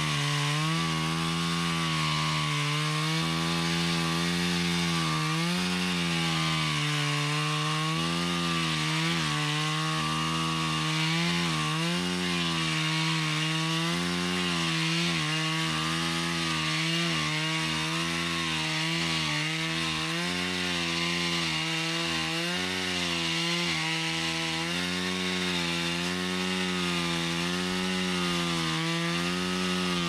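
Two-stroke chainsaw running at high revs as it strips bark along the top of a log, its pitch dipping and recovering over and over as the chain bites in under load.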